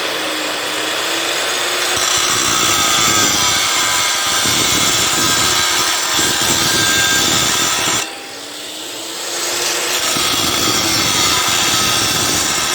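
Power tool with an abrasive cut-off wheel running and cutting iron, a loud steady whine whose pitch sags slightly under load. About eight seconds in the sound drops suddenly, then rises again over a couple of seconds as the wheel speeds back up.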